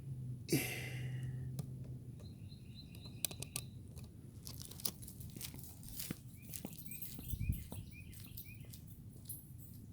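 A small bird chirping in quick repeated series of short notes, over scattered clicks and knocks. A brief rustling burst about half a second in, and a low thump a little past seven seconds.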